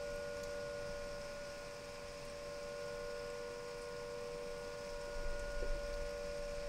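Fire station siren sounding a steady two-note chord without rising or falling, with a brief low rumble about five seconds in. The siren has been left sounding continuously since a lightning strike, which the recordist takes as a sign that the station itself was hit by lightning.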